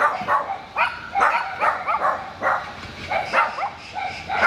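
Dogs barking in a steady run of short, sharp barks, about two to three a second, set off by imitated barking.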